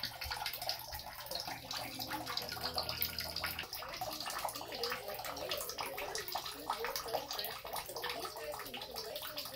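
Bathwater sloshing and splashing in a bathtub, with irregular small splashes as a toy is pushed through the water.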